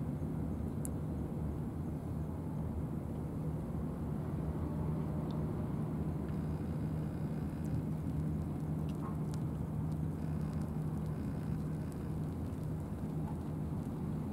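A steady low engine hum, even throughout, with a few faint clicks.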